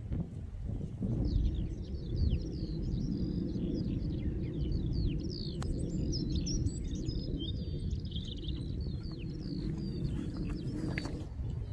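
Wind buffeting the microphone, with a bird singing a long run of quick, varied chirps over it from about a second in until near the end. One sharp click near the middle.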